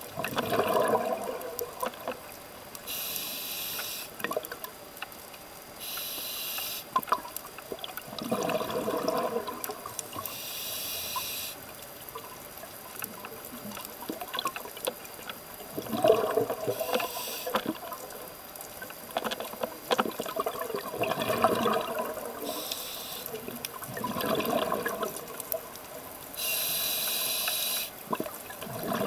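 Scuba diver breathing through a regulator, heard underwater: a steady hiss of air through the demand valve on each inhale, about six times, alternating with bubbly gurgling bursts of exhaled air.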